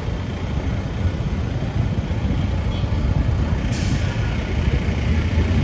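Low, steady rumble of idling vehicle engines and street traffic close by, with a short, sharp hiss a little under four seconds in.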